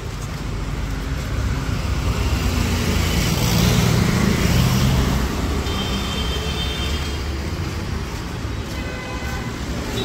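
Road traffic: motorbike and car engines with tyre noise, swelling as a vehicle passes close in the middle. Short vehicle horn toots sound about two-thirds of the way through and again near the end.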